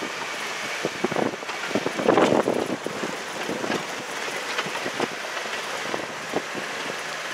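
Toyota vehicle crawling over a rocky dirt trail, heard from inside the cab: a steady run of driving noise broken by many short knocks and rattles as the wheels and body jolt over stones and ruts, with a louder rumble about two seconds in.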